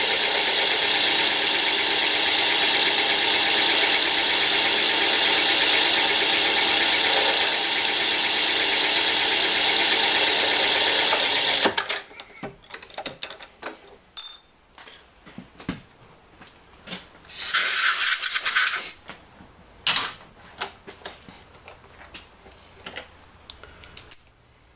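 Machine spindle running a quarter-inch reamer through a hole in a metal part: a steady motor whine that stops abruptly about twelve seconds in. After it, light metallic clicks and knocks as the part and tooling are handled, with one short hiss about halfway through that stretch.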